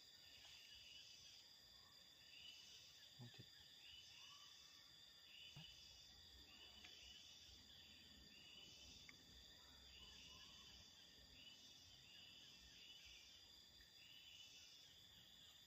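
Faint insects: a steady high-pitched buzz with a short high chirp repeating about once a second.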